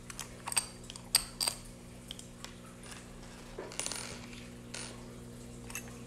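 Metal clicks and clinks from a screwdriver backing screws out of an old door knob, with the loose screws set down on a stone countertop. A few sharp clicks come in the first second and a half, then a brief scrape about four seconds in.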